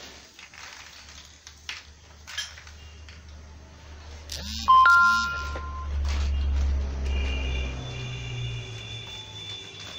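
Light rustling and clicking of plastic packaging and parts being handled, then about halfway through a loud two-note electronic chime, followed by a low hum and faint steady tones.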